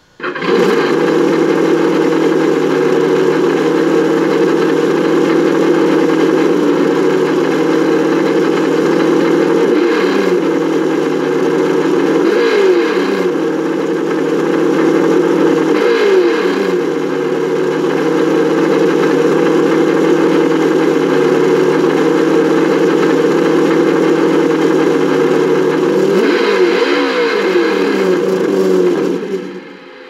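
Traxxas Slash On Board Audio speaker playing a simulated engine sound: it starts up suddenly, runs steadily, and revs up and back down several times, with a quick run of revs near the end, then cuts off.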